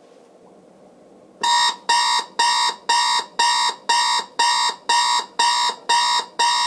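General Electric 7-4612BK clock radio's beeper alarm going off at its set wake time: loud, evenly spaced electronic beeps, about two a second, starting about a second and a half in.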